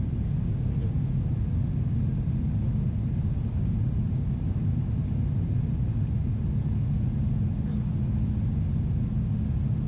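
Steady low cabin rumble of a Boeing 777-300ER airliner, heard from a window seat, with engine and cabin noise running evenly throughout.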